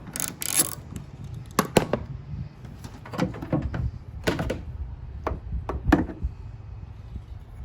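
Scattered clicks and knocks of tools and plastic parts being handled under the hood while the air cleaner is worked loose, about eight short sharp sounds spread over several seconds.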